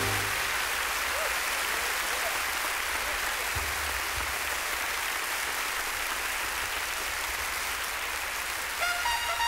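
A theatre audience applauding steadily after the band's final chord cuts off at the start. Near the end a trumpet starts playing over the applause.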